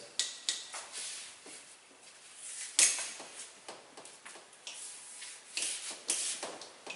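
Hand-held whiteboard eraser wiped across a whiteboard in a run of irregular rubbing strokes, the strongest about three seconds in.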